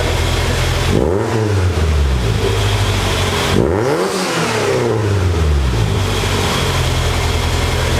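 1992 Honda Civic EG hatchback's engine idling, revved twice with quick throttle blips, about a second in and again near four seconds, each rising and falling back to idle.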